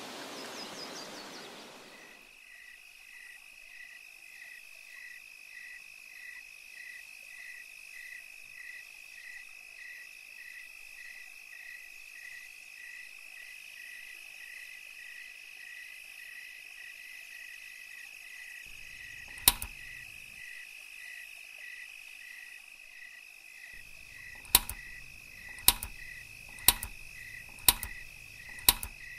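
Night-time crickets chirping in an even rhythm, about two chirps a second, over a constant high trill, after a rushing noise fades out in the first two seconds. A loud sharp click comes about two-thirds of the way in, then five more about a second apart near the end.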